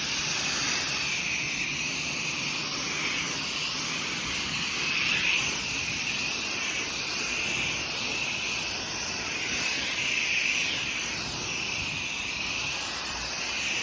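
Pressure washer spray rinsing a deck: a steady hiss of high-pressure water on the boards. Its pitch wavers as the spray sweeps across the surface.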